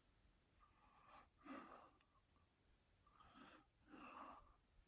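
Near silence outdoors, with a faint steady high insect trill, crickets, and a few faint soft puffs of breath.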